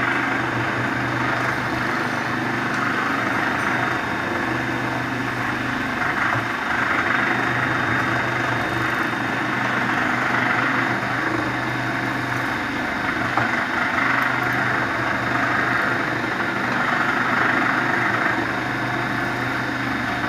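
Water filter cap making machine running steadily: a continuous electric-motor hum with a whir from its rotary mould table and head.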